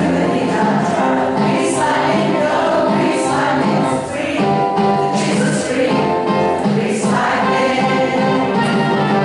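A large amateur community choir, mostly women, singing together over an accompaniment with a steady, repeating bass line.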